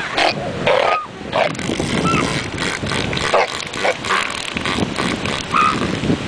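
Elephant seal colony: irregular short grunts and calls over a steady low rumble.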